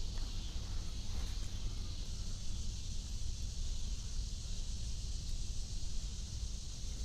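Outdoor ambience: wind rumbling on the microphone under a steady high hiss.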